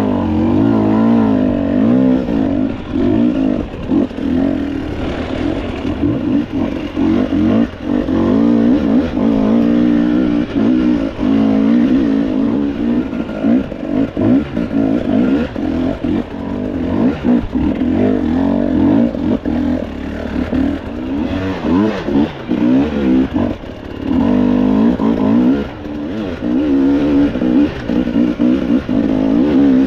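Enduro dirt bike engine revving up and down over and over, throttle opening and closing as the bike works along a rough trail, with occasional short knocks from the bike.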